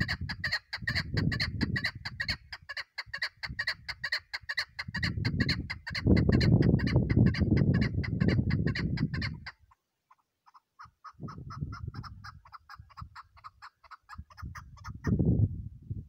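Chukar partridge calling: a fast, even run of short repeated clucking notes, several a second. It breaks off just before ten seconds in, starts again fainter and higher, and stops about fifteen seconds in.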